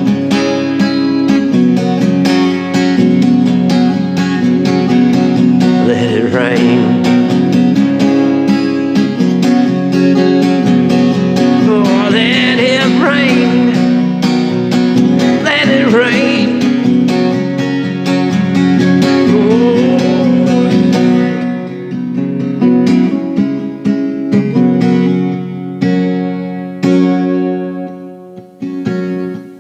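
Acoustic guitar strumming and picking chords in a song's instrumental passage, with a few gliding melody lines over it. Near the end the playing thins out to single plucked notes.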